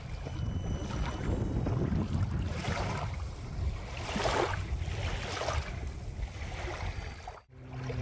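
Small waves washing in over sand at the water's edge, a hiss that swells and fades every second or two, over a steady rumble of wind on the microphone. The sound cuts out briefly near the end.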